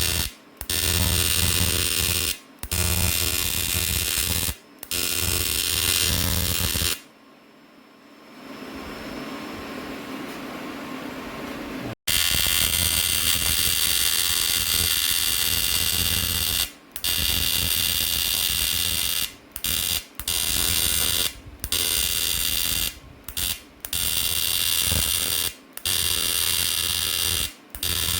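Handheld power tool running in stretches of a couple of seconds with brief stops, as if worked by the trigger, while cleaning down a car wheel rim. Around a quarter of the way in it goes quiet for a few seconds, with only a lower steady hum.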